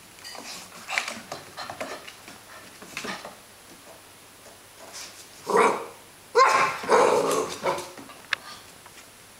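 Greater Swiss Mountain Dog puppy barking: a single bark about five and a half seconds in, then a louder run of barks right after, with light clicks and rustles before them.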